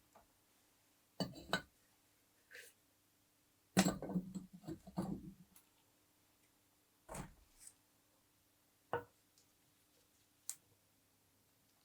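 Scattered knocks and light clinks of objects being handled, with a busier cluster of knocks about four seconds in, over a faint steady hum.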